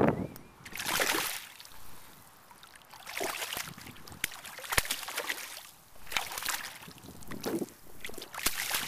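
A hooked redhorse sucker thrashing at the water's surface as it is brought to hand: irregular bursts of splashing with a few sharp slaps.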